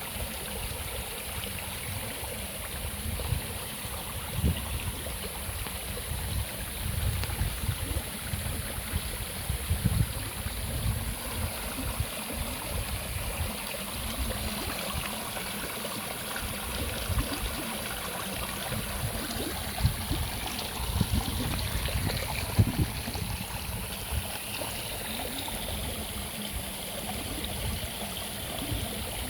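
A stream flowing steadily, with irregular low rumbles coming and going.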